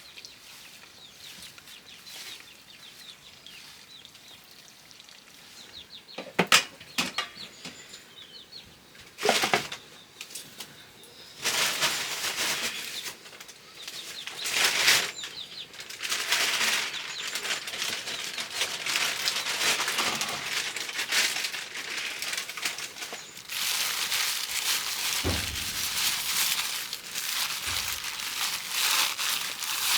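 Plastic sheeting rustling and crinkling as it is handled, dense and crackly from about a third of the way in, after a few sharp clicks.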